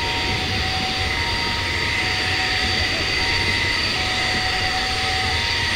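The four Honeywell LF507 turbofan engines of an Avro RJ85 jet running steadily as it taxis: a steady whine with high and middle tones over a low rumble.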